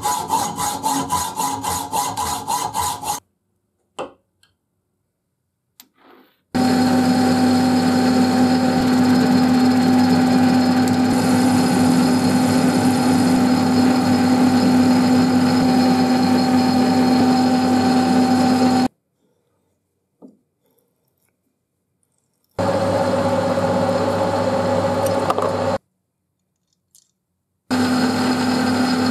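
A hand hacksaw cuts through the old vise handle rod in quick strokes, about four a second. Then a metal lathe runs steadily, a carbide insert turning a small pin from the rod, in three stretches separated by short silences.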